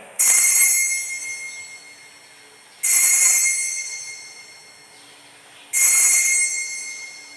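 Altar bells rung three times at the elevation of the consecrated host, each ring bright and high and dying away over about two seconds.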